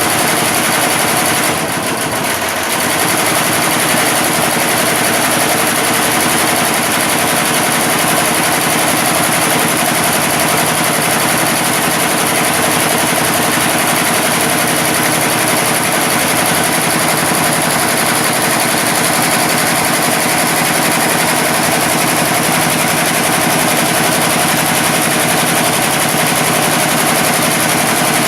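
Computerized embroidery machine stitching at speed: a fast, steady mechanical chatter with a slight dip about two seconds in.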